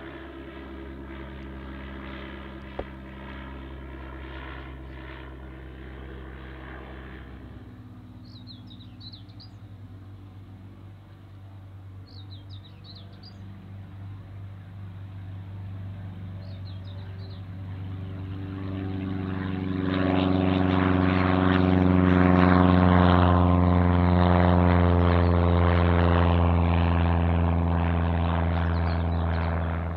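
A motor glider's propeller engine drones steadily overhead and fades about seven seconds in, leaving a few short bird chirps. Then a single-engine piston propeller plane at full takeoff power builds up and runs loud and steady over the last ten seconds, cutting off abruptly at the end.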